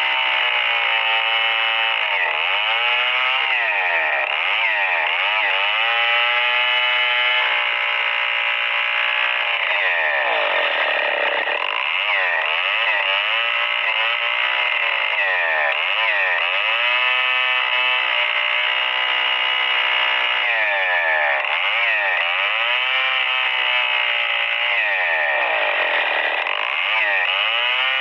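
STIHL 070 two-stroke chainsaw running hard while ripping lengthwise through a Merbau log. Its engine note dips and climbs back again and again as the bar is worked forward and back through the cut.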